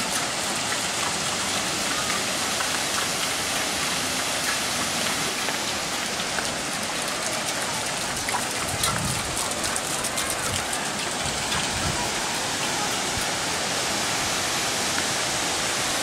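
Water pouring from a pipe onto a small paddle water wheel and splashing into a pond: a steady, even splashing.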